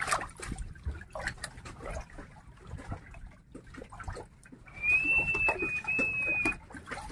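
Water splashing and dripping, with small scattered knocks. Near the end comes a steady high whistle lasting about two seconds, broken once briefly.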